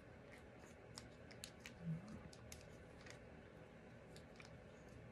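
Near silence with faint, scattered light clicks and taps: a pick-up tool lifting small adhesive matte dots from their sheet and pressing them onto a cardstock card. A short low hum about two seconds in.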